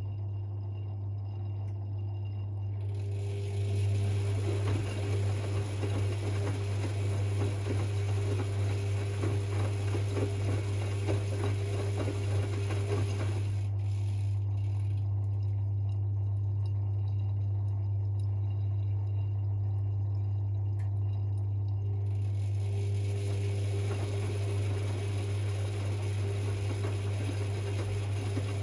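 Privileg 5020 washing machine with a steady low hum throughout and a water-like hiss that switches on suddenly about three seconds in, cuts off a few seconds before the middle, and starts again about two-thirds of the way through.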